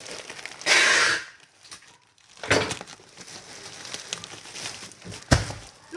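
Parcel packaging being handled: a short burst of rustling or ripping about a second in, a knock about two and a half seconds in, and a sharper thump near the end.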